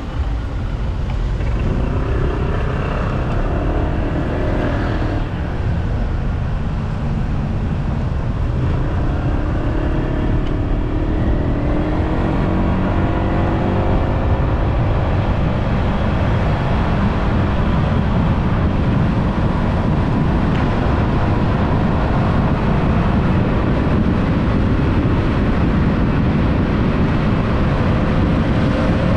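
Riding on a motorbike: steady wind rush on the microphone with the bike's engine running underneath, its pitch rising and falling with speed.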